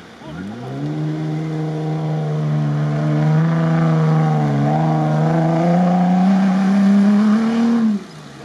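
Off-road 4x4's engine revving hard under load as it drives through sand, its pitch climbing about a second in and rising slowly higher, then falling away suddenly near the end.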